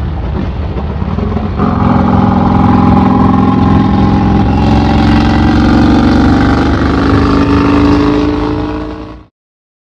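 Vincent 1000cc V-twin motorcycle engine running through its open straight-through exhaust, heard from the saddle. About one and a half seconds in it gets louder as the throttle opens, and its pitch climbs slowly as the bike accelerates. The sound fades out sharply near the end.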